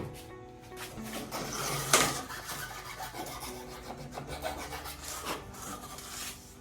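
A piece of wood being cut by hand with rough, repeated scraping strokes, the loudest about two seconds in.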